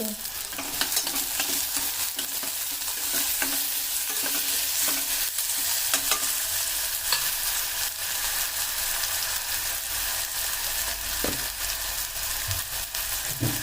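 Chopped tomato and onion frying in hot oil, sizzling steadily while a spatula stirs and scrapes the pan, with many small clicks.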